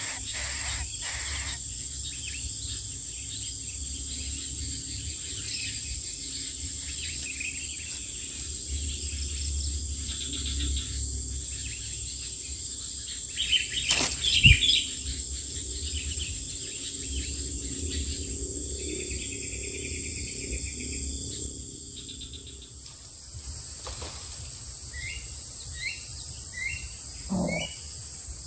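Steady high-pitched insect drone with faint bird chirps, broken about halfway through by a loud rustle and flutter as the adult greater coucal leaves its nest. A few short rising chirps come near the end.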